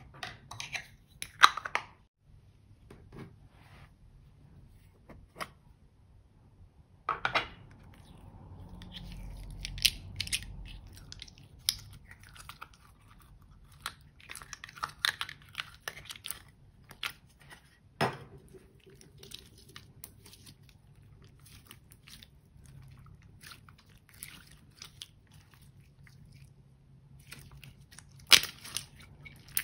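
Clear slime being squeezed and pressed by hand, pulled from a metal tin, making sticky crackles and small pops, with a few louder snaps scattered through.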